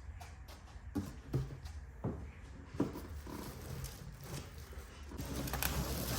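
Unpacking handling noise from a wheel box: several light knocks spread over the first few seconds, then rustling from about five seconds in, over a low steady hum.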